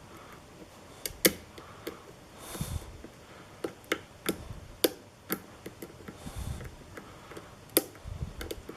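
Lock pick and tension wrench working the five pins of a pin-tumbler challenge lock, making small, irregularly spaced metal clicks and ticks as the pins are lifted and set, about a dozen in all.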